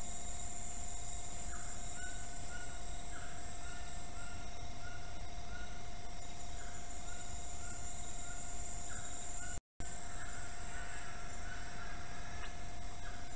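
Forest ambience through a trail camera's microphone: a steady hum and high hiss, with short chirps repeating every second or so. The sound drops out completely for a moment about ten seconds in.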